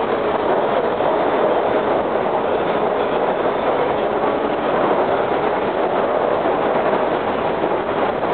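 Steady running noise inside a Breda 4000-series Metrorail car travelling along the track: an even rumble and rush of wheels on rail, with no change in level.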